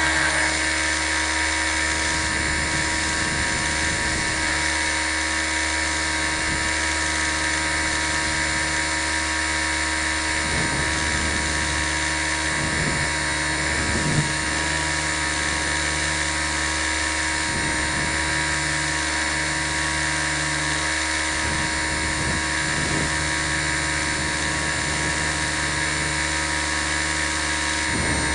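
Small RC helicopter (T 250) running at a steady speed, heard from a camera mounted on the helicopter itself: a steady high-pitched motor and gear whine over a low rotor hum.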